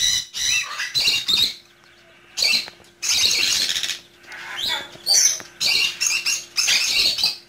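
Baby quail chicks peeping: many high-pitched chirps in bursts, with a short lull about two seconds in.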